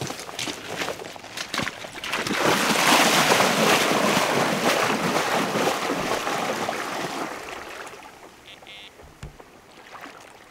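Water splashing as a person wades quickly through shallow lake water in chest waders. It is loudest in the middle and dies away as the wading stops.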